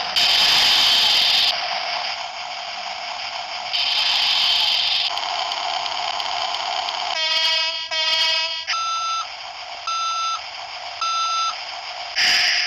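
Caterpillar (Cat) phone ringtone: an electronic sequence of hissy noise bursts, then two pitched tone pulses, then three even beeps about a second apart, and another hissy burst near the end.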